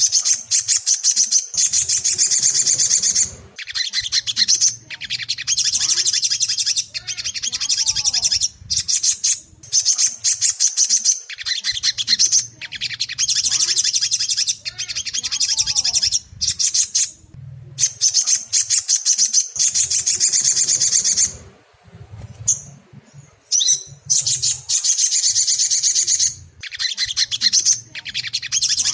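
Ruby-cheeked sunbird (sogon) song: long bouts of rapid, high-pitched twittering chatter lasting several seconds each, broken by short pauses.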